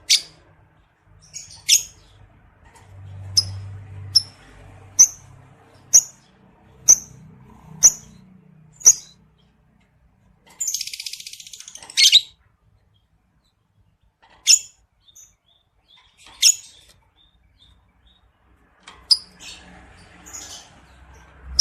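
Lovebird calling: sharp, high single chirps about once a second, broken near the middle by a dense, rapid chattering trill lasting about a second and a half, then a few more scattered chirps. This is the excited chatter ('ngekek') of a lovebird in breeding condition.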